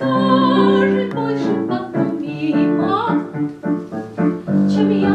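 Live piano accompaniment with a singing voice carrying a melody over it, with vibrato early on and a rising phrase about three seconds in, in the style of a Russian romance.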